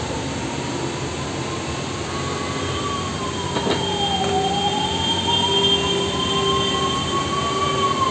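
Emergency vehicle siren wailing slowly, its pitch rising and falling about every four seconds, over steady road-traffic noise.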